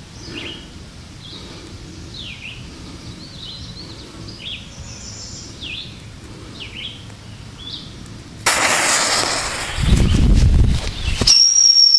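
Birds chirping, then about eight and a half seconds in a Crazy King firecracker goes off: a sudden loud rush of noise that swells into a deep blast, then a sharp crack followed by a high steady tone near the end.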